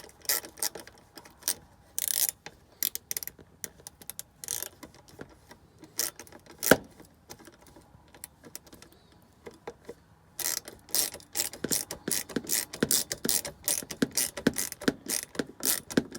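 Allen driver working the bottom 10-32 set screw of a freezer door handle: scattered metal clicks and taps, one sharper click partway through, then a fast run of ratcheting clicks from about ten seconds in as the screw is turned.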